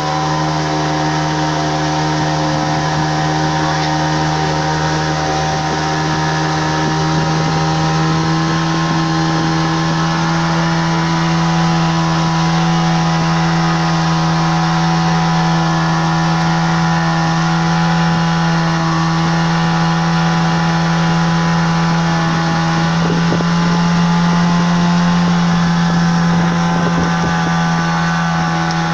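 Small motorboat's engine running at a steady speed: one even drone that holds its pitch throughout.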